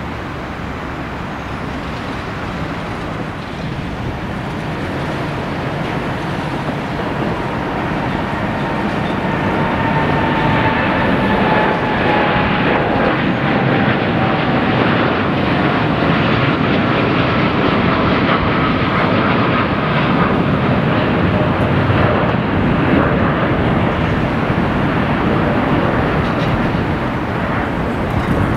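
Boeing 787-9 jet engines at takeoff thrust on climb-out: a broad, steady roar that grows louder after several seconds, with a faint whine sliding slowly down in pitch as the airliner passes.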